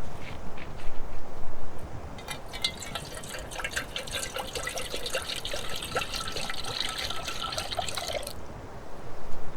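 A few handling knocks, then liquid poured into a container for about six seconds, a gurgling trickle that stops abruptly near the end.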